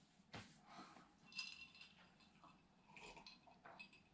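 Near silence: room tone with a few faint, short clicks and light clinks.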